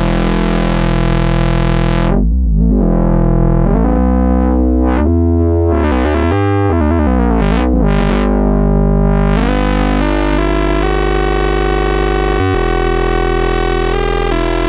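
Behringer Odyssey analog synthesizer holding a bright, buzzy sustained low note. About two seconds in the filter closes down, then sweeps open and shut several times before opening fully again.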